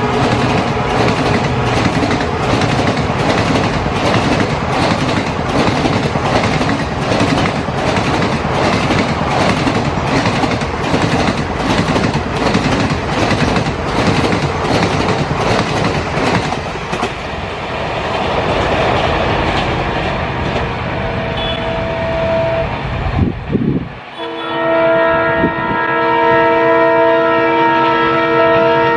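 An Indian express passenger train passing over a level crossing at speed, its wheels clattering in a rapid, regular rhythm over the rail joints, fading off after about seventeen seconds. Near the end a diesel locomotive's multi-tone horn sounds one long, steady blast.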